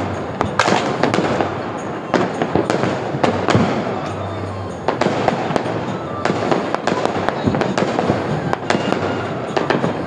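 Fireworks and firecrackers going off in many sharp, irregular bangs and crackles.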